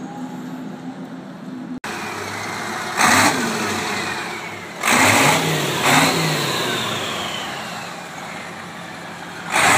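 A custom diesel truck trike's Caterpillar diesel engine runs at idle and is revved in four short blips, about three, five, six and nine and a half seconds in. Between the revs a whistling tone slowly falls in pitch.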